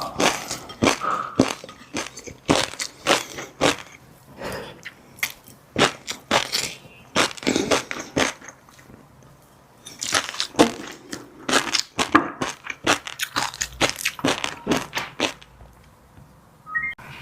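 Close-miked eating: crunching and chewing of fish roe and a crunchy chili-garlic seafood mix, in quick runs of crisp crackles with short lulls, and a brief ringing clink near the end.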